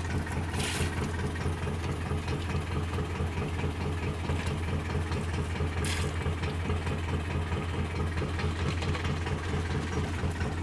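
An engine idling, a steady low drone with an even pulse, with two brief hissing sounds over it, about a second in and about six seconds in.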